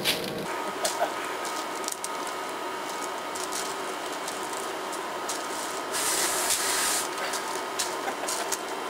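Can of compressed air spraying in long, steady hissing blasts into a dusty air conditioner to blow the dust out, with a louder, stronger blast about six seconds in.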